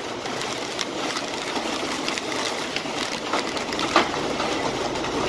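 Heavy wind-driven rain pouring down in a steady rush, with scattered sharp taps and one louder knock about four seconds in.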